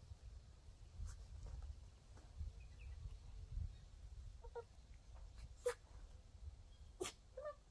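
Faint steady low rumble, like wind on the microphone, with a few short, high squeaks and two sharp clicks about a second and a half apart in the second half.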